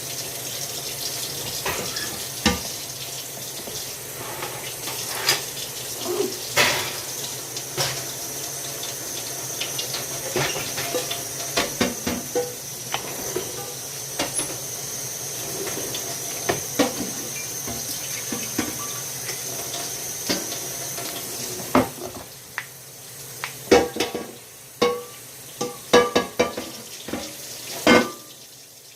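Kitchen tap running into a sink, with frequent clinks and knocks of dishes being handled. About three quarters of the way through the water stops, and the clatter of dishes goes on by itself.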